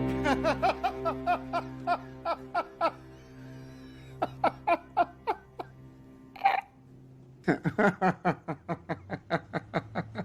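Laughter in runs of short, quick "ha" notes, about four a second, over background music with a held chord.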